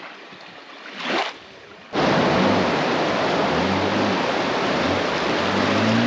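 Soft water sounds with a brief splash about a second in, then, after a sudden cut about two seconds in, loud, close rushing of river rapids churning around the canoe, with a low droning tone underneath.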